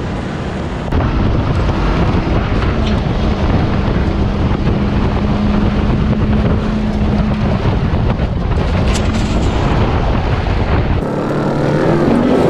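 Ram 1500 TRX's supercharged 6.2-litre V8 running hard off-road, holding a steady drone for several seconds over the rushing noise of tyres churning dirt; the revs climb again near the end.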